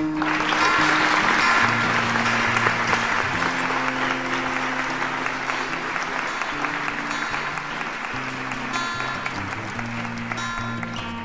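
Applause that starts suddenly and slowly dies away, over acoustic guitar background music.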